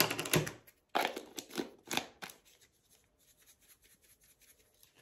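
Ultra-fine glitter shaken and tapped out of a plastic jar: a run of quick soft clicks and rustling in the first couple of seconds, then fainter scattered taps.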